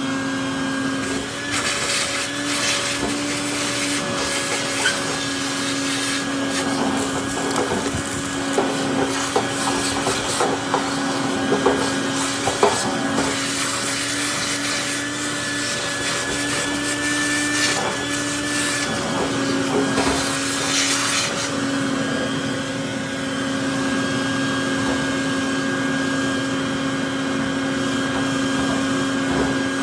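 Small vacuum running with a steady hum while its nozzle scrapes and rubs inside a dryer's cabinet in bursts, sucking out lint.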